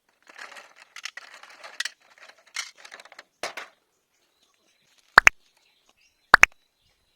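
Crinkling and rustling of the toy train set's packaging being handled, then a high double chirp that sounds twice, about a second apart.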